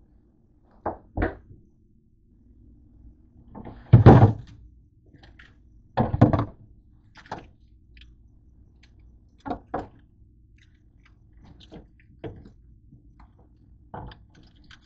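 Refrigerator door and crisper drawer being handled: a string of thunks and knocks, the two loudest about four and six seconds in, with smaller knocks as items in the drawer are moved.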